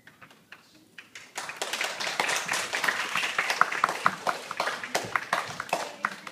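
A few people clapping by hand. It starts with a handful of separate claps and becomes a steady, dense clapping about a second and a half in.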